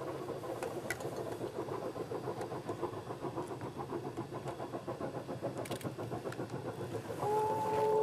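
QJ 2-10-2 steam locomotive chuffing with fast, even exhaust beats. Its whistle sounds one steady chord for about a second near the end.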